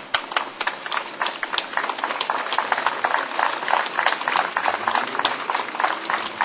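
A small crowd applauding, many separate hand claps in an irregular patter that starts suddenly.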